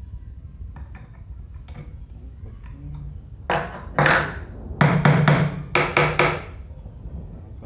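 A run of sharp knocks like hammer taps, beginning about halfway in: two single knocks, then two quick groups of three, with faint clicks before them.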